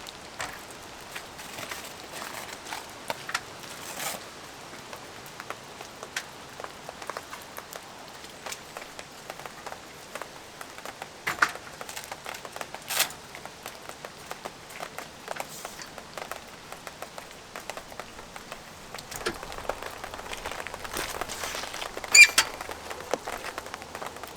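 Rain falling, with scattered raindrops ticking irregularly on a surface, a few louder than the rest, and a sharp click near the end.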